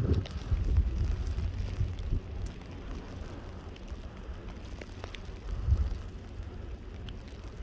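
Gusty wind rumbling on the microphone, with a few faint scattered ticks.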